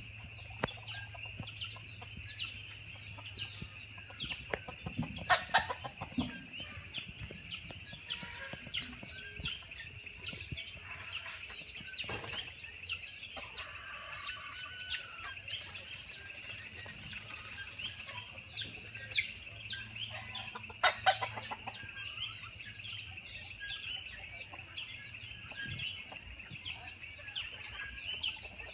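Chicken calling: a steady run of short, high, falling peeps about twice a second, with louder harsh calls about five seconds in and again about twenty-one seconds in.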